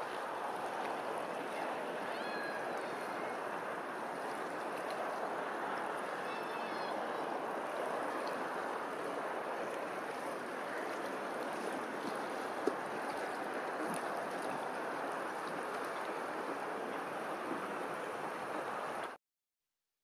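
Steady rush of moving water, lapping and splashing, with a few faint high bird chirps about two and six seconds in. It cuts off suddenly just before the end.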